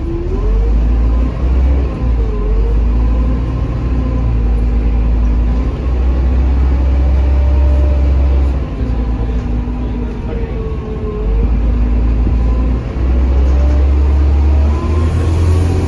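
Inside a Mercedes-Benz OH1830LE bus under way: its OM926 inline-six diesel and ZF Ecomat automatic transmission are running. There is a deep, steady rumble and a whine that rises and falls in pitch as the bus speeds up and slows.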